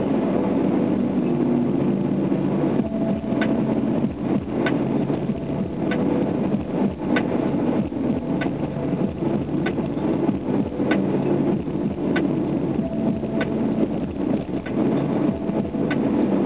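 Subaru SVX's 3.3-litre flat-six engine and road noise heard from inside the cabin while cruising at steady speed, a dense steady hum. From a few seconds in, a short sharp tick repeats about every second and a quarter.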